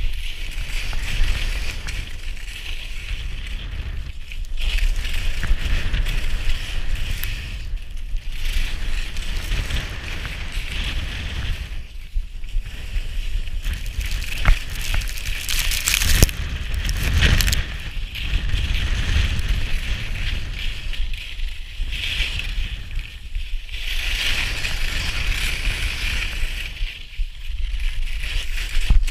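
Skis hissing and scraping across firm, scraped late-season snow, swelling and easing with each turn every few seconds, with wind rumbling on the microphone.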